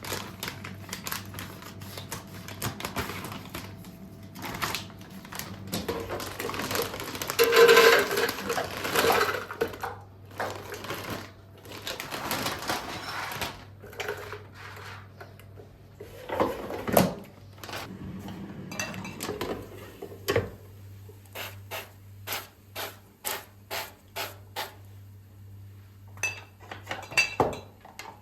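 Household kitchen handling sounds: dishes, containers and utensils being picked up and set down in a run of clinks and knocks, busiest and loudest about a third of the way in, over a steady low hum.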